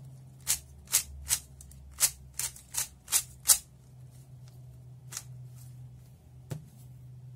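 A 3x3 speed cube's layers are being turned quickly through a last-layer edge-swap algorithm (the Z-perm), each turn a sharp plastic click. There are about a dozen clicks in quick succession in the first three and a half seconds, then two single turns later on.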